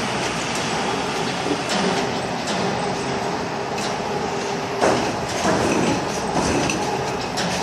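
Machinery running steadily with a low hum, broken by a few sharp knocks, the loudest about five seconds in.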